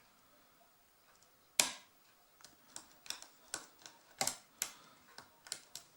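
Lock pick and tension wrench working the pin stack of a Brinks padlock. A sharp click comes about a second and a half in, then a run of irregular light clicks as the pick lifts and sets the pins.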